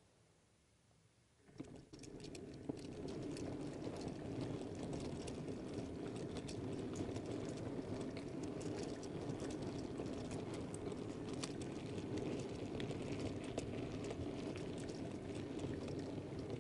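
Model railway goods train rolling along the track, picked up from the rear wagon: a steady rumble of small metal wheels on rail with quick irregular clicking from the wheels over rail joints and pointwork. It starts moving about one and a half seconds in.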